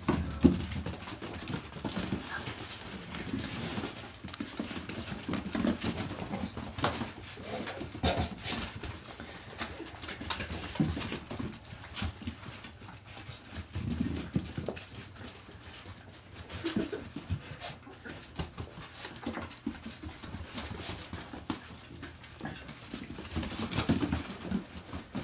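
Border Collie puppies playing on straw bedding: irregular scuffling and clicking, with short puppy vocal sounds now and then.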